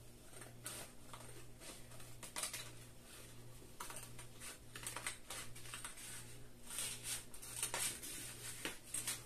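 Small scissors cutting through a thin plastic stencil sheet: a faint, irregular run of snips and crackles of the plastic, over a low steady hum.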